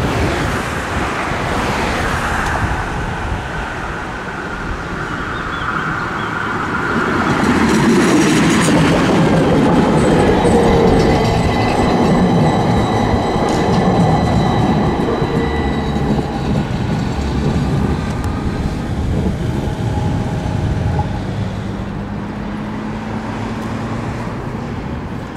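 A tram passing on street track: wheels running on the rails with a steady whine from the drive, loudest about eight to fourteen seconds in.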